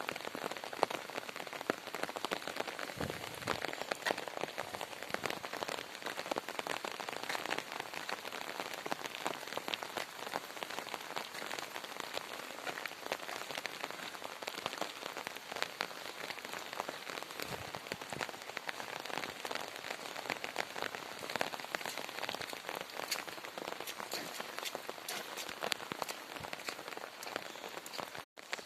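Steady rain falling, a dense patter of many drops striking a surface.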